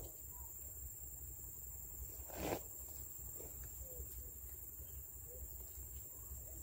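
Faint outdoor ambience: a steady high-pitched hum with a few faint short chirps, and one brief rustling bump about two and a half seconds in.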